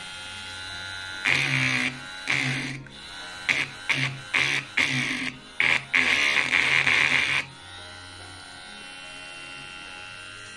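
Mini cordless rotary tool drilling, its bit grinding into the material in a series of short bursts of varying length as it is pressed on and eased off. It then settles to a quieter steady whir for the last few seconds.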